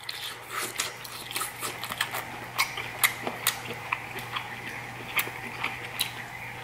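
Close-miked chewing of lobster tail meat with open-mouthed lip smacking: an irregular run of wet clicks and smacks, several a second, over a low steady hum.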